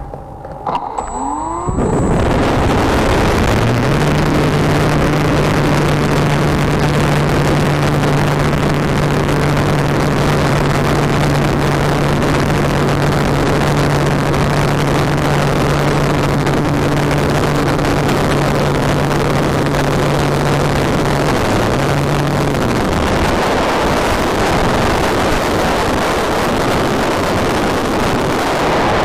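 A model airplane's motor spinning up with a rising whine, then a loud, steady rush of noise with a low, steady motor drone while it flies, picked up by the microphone aboard the plane. The drone drops out about three quarters of the way through, leaving the rushing noise.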